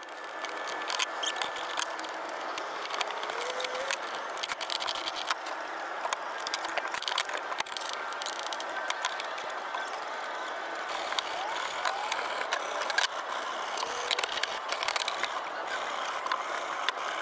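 Hand-held steel wire brush scrubbing the corroded metal tube of an Aries wind-vane steering gear, de-crusting bimetallic corrosion: a continuous rapid scratching dotted with many small clicks.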